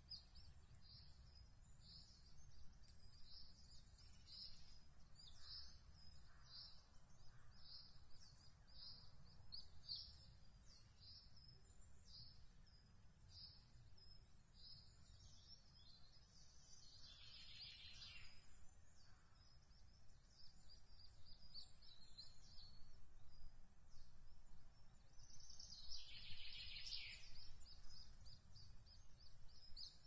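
Faint, high, thin bird calls repeated about twice a second, with two louder, longer calls, one a little past halfway and one near the end, over a steady low rumble.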